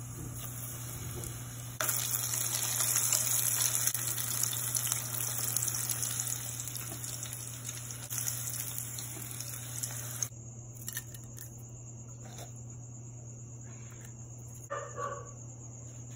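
A battered clump of leftover pasta frying in hot oil: a loud sizzle starts about two seconds in and cuts off sharply about ten seconds in. After that a steady low hum with a high whine is left, and a dog yips twice near the end.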